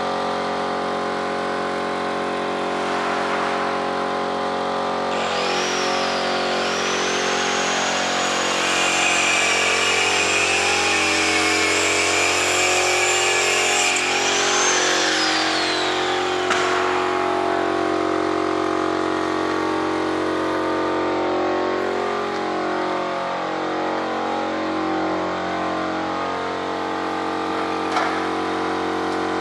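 Air compressor running steadily, with a paint spray gun hissing from about five seconds in until about sixteen seconds, its hiss wavering in pitch.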